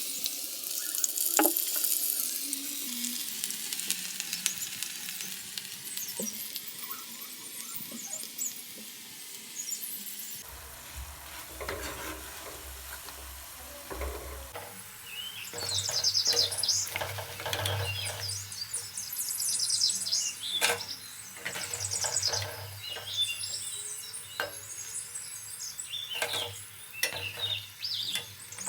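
Food sizzling as it fries in hot oil, with a utensil stirring and clicking against the pan. There is a steady hiss at first, then after an abrupt change about ten seconds in, mostly repeated short clicks and scrapes.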